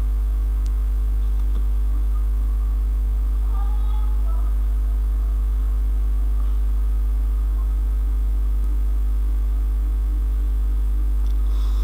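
Loud, steady electrical mains hum, a low drone with a ladder of fainter steady overtones above it, unchanging throughout.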